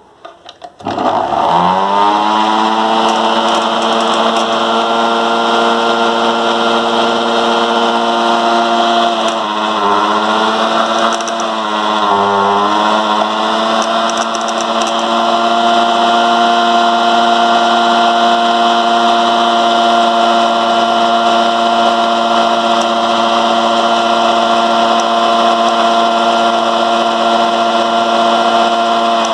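Electric motor of a homemade propeller-driven generator switched on, spinning up with a quickly rising whine, then running at a steady, high, even hum. Its pitch sags briefly twice near the middle before settling again.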